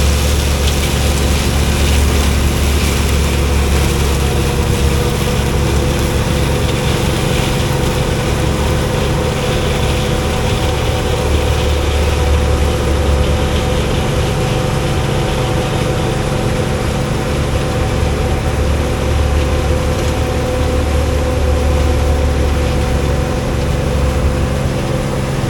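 Combine harvester running steadily while cutting soybeans: a deep engine rumble that swells and eases every few seconds under a steady mechanical hum.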